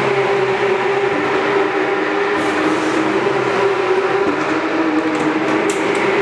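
Steady mechanical drone with a constant hum, with a few light clicks near the end.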